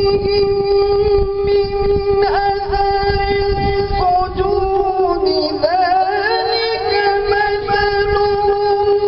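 Melodic Quran recitation by a male qari into a microphone. He holds long notes and slides down in pitch with ornaments about halfway through, then rises back to a held note.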